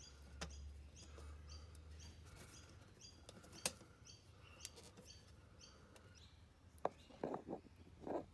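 Quiet hand-work as a brass air-line fitting is threaded by hand into a new air spring: a few light clicks and taps, with a small cluster near the end. Behind them, faint high chirps repeat about twice a second.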